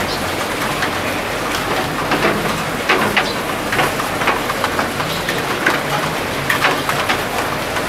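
Steady rain falling, with many irregular sharp drips tapping on surfaces.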